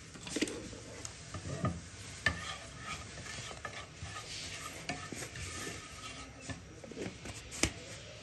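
Crushed cumin and dry coriander seeds sizzling in a little hot oil in a pan while a spoon stirs them, with a few sharp knocks and scrapes of the spoon against the pan.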